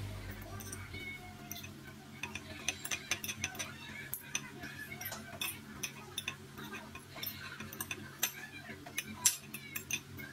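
A metal fork clinking and scraping against a ceramic plate while instant noodles are tossed and mixed, in quick irregular ticks with one sharper clink near the end.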